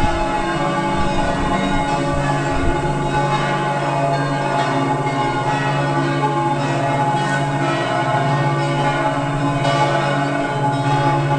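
Several church bells ringing together, their tones overlapping in a continuous, steady peal.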